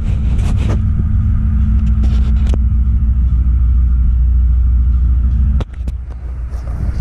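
Diesel locomotives idling at the platform: a steady low rumble with a hum in it, with a few light clicks. The rumble drops away abruptly about five and a half seconds in, leaving a fainter rumble.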